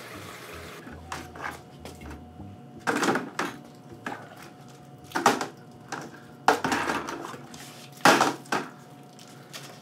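Stainless steel and plastic brewing equipment being handled, giving a series of irregular clanks and clinks, about one every second or so. Underneath is a faint steady hum from the small pump circulating the hot wort through the chiller.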